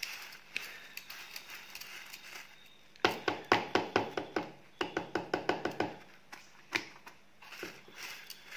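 Steel lathe swarf crackling as it is worked off a magnetic pickup wand over a plastic bucket, shaking loose the brass shavings caught in it. About three seconds in comes a quick run of sharp taps, about five a second, for some three seconds, with a few more taps near the end.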